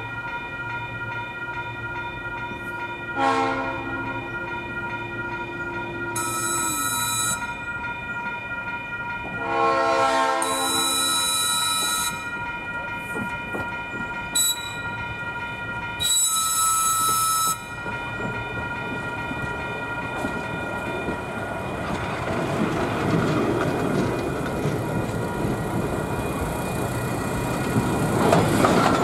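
Train horn sounding for a grade crossing: a short blast about three seconds in and a longer one around ten seconds in, over steady high ringing tones. From about twenty seconds on, the rumble of the approaching train and its wheels grows steadily louder.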